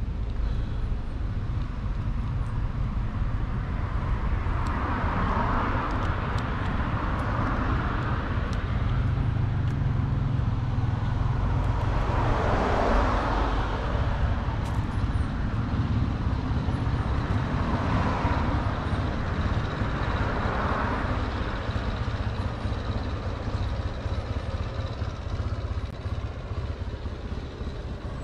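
Road traffic noise: a steady low rumble, with vehicles passing in three slow swells that rise and fade.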